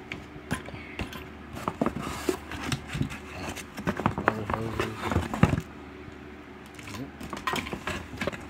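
Handling noise from unpacking: a cardboard box and its flaps scraping and knocking, with clicks from the brass-fitted manifold gauge set and its hoses being moved, in a busy run that eases off past the middle and picks up again near the end.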